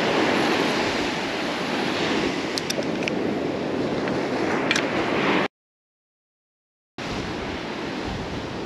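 Small surf washing and breaking on a sandy beach. The sound drops out to silence for about a second and a half midway, then the surf returns.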